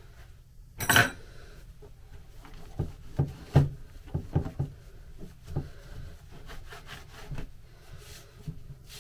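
A rag rubbing and wiping over a freshly painted heater box casing, with the box knocking on the workbench as it is handled: one sharp clatter about a second in, then a run of lighter knocks.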